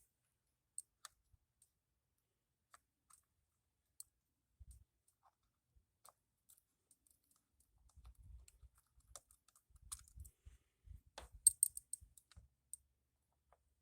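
Sparse light metallic clicks and taps of hand tools working the derby cover bolts on a Harley Sportster's primary cover, with soft handling thumps and a quick flurry of sharper clicks about eleven and a half seconds in.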